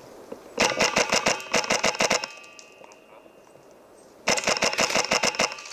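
Two rapid bursts of shots from a Polarstar HPA-powered airsoft rifle, sharp snaps fired in quick, even succession. The first burst lasts about a second and a half; the second starts about four seconds in and lasts over a second.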